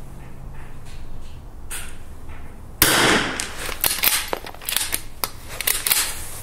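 A .22 rimfire bolt-action rifle fires a single shot about three seconds in, a short sharp crack, with a fainter bang a little over a second before it. A run of sharp metallic clicks follows as the rifle is worked by hand after the shot.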